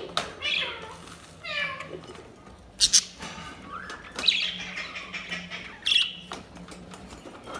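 Budgerigars chirping and warbling in quick, overlapping calls, with a couple of sharp clicks about three seconds in.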